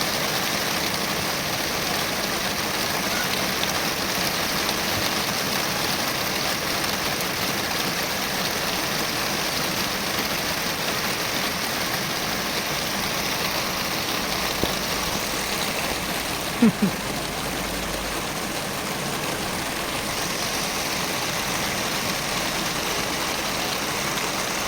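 Heavy rain falling in a steady, dense hiss. A couple of brief louder sounds stand out about two-thirds of the way through.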